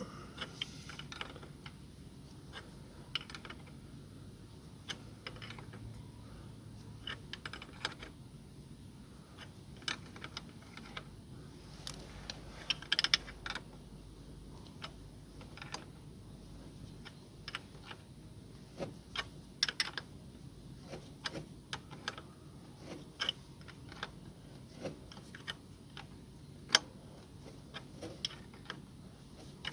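Irregular light metallic clicks and clinks of spanners and a homemade threaded puller working the AC compressor's clutch front plate off its shaft, with no steady rhythm.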